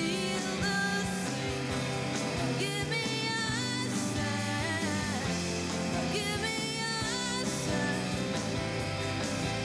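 Rock band playing live: electric guitars through amplifiers, bass guitar and a drum kit, with a woman singing.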